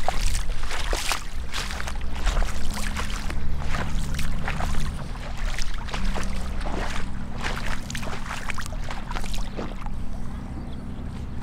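Gumboots wading through shallow floodwater: irregular splashing and sloshing with each step, the splashes thinning out near the end.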